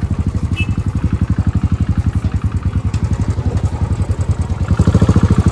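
Motorcycle engine running at low revs, an even rapid putt of exhaust pulses about ten a second, getting louder about five seconds in as it opens up.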